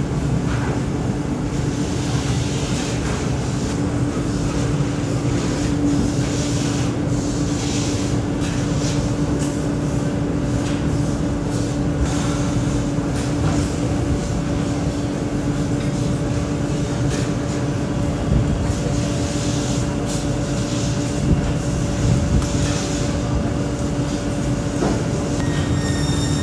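Workshop machinery running steadily: a constant low rumble with a steady hum, and faint scattered clicks and rustles from handling the leather.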